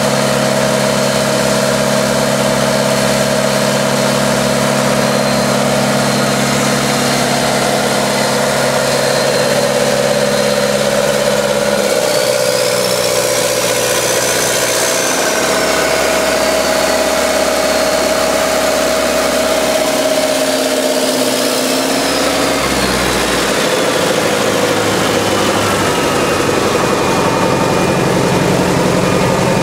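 Diesel engine of a 1967 Caterpillar 955K crawler loader running steadily, its note changing twice partway through.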